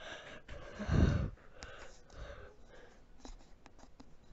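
A person's breathy sigh, one loud exhale about a second in, with softer breaths around it.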